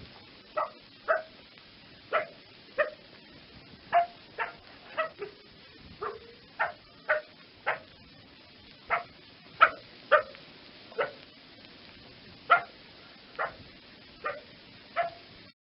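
A canine barking repeatedly: short, sharp barks, one to two a second at uneven intervals. The barks cut off suddenly near the end.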